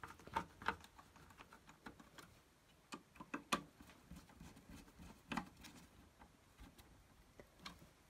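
Faint scattered clicks and ticks of a screwdriver driving small screws into a CD player's plastic disc-tray mechanism, with a few sharper clicks of tool and parts being handled.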